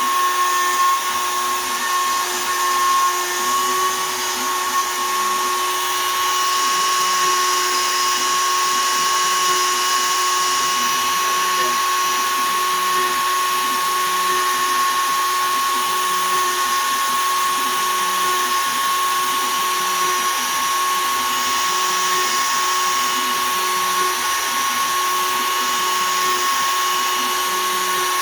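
Shapeoko 3 XL CNC router running a 1/8 in two-flute downcut spiral bit at 20,000 rpm, cutting poplar: a steady high whine over hiss, with a low sound that rises and falls over and over as the machine traverses back and forth.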